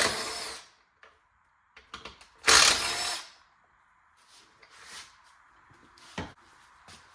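Power drill-driver with a Torx bit spinning in two short bursts of about a second each, backing out the fasteners on a seat-belt ratchet cover. A few light clicks follow, and a knock about six seconds in as parts are handled.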